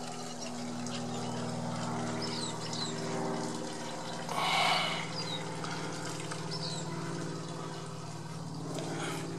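Steady trickling water with a constant low hum underneath, as from a backyard pond's pump. A few faint bird chirps come through, and a brief rushing sound comes about halfway through.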